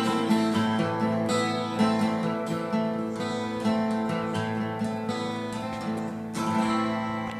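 Two acoustic guitars strumming the closing chords of a song, about two strums a second, slowly dying down with a last chord ringing out near the end.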